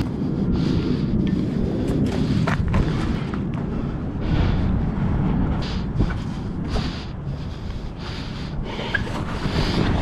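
Wind buffeting the microphone as a steady low rumble. Over it come a few light knocks and scrapes of gloved hands and boots on a rusty steel frame during a climb, clustered about two to three seconds in.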